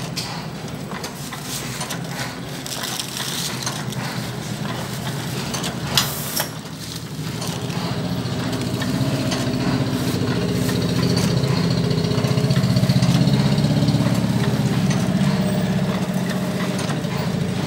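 Motor-driven machine running with a steady low hum. A sharp click comes about six seconds in, and the hum grows louder from about eight seconds on.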